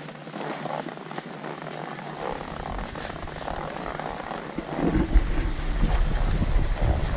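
Skis sliding and scraping over groomed snow, with wind buffeting the camera microphone; the low rumble of the wind gets much louder about five seconds in.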